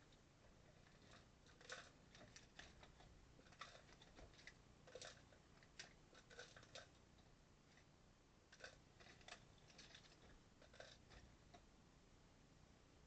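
Faint, irregular clicks and light rattles of plastic Lego Technic pieces being handled and pressed together.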